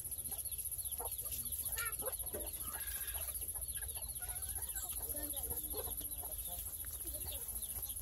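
A flock of free-range native chickens clucking, many short calls from several birds overlapping.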